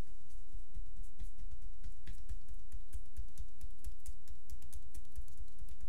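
Percussive tapotement massage: loosely clasped hands striking a bare shoulder and upper back in quick succession, making a fast, even patter of light slaps and soft thumps on skin.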